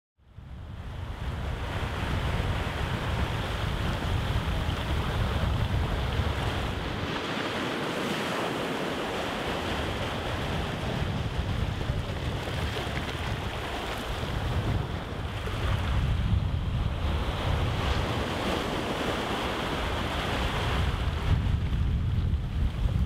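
Waves breaking and washing over a flat, rocky shore, surging and easing, with wind rumbling on the microphone. It cuts in abruptly just after the start.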